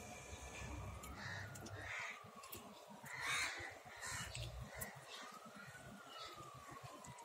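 Crows cawing, several short faint calls, the loudest about three seconds in.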